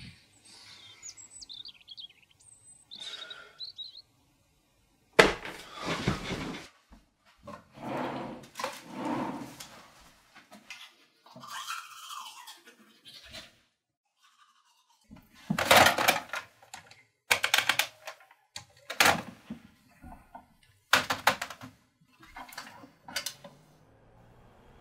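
Birds chirping for the first few seconds, then a string of separate short scrubbing and rustling sounds, among them toothbrushing, with the loudest strokes packed close together near the end.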